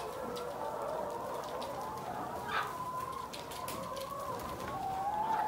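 A large flock of Rhode Island Red laying hens clucking together, a steady chorus of many overlapping calls, with one brief sharper call about halfway through.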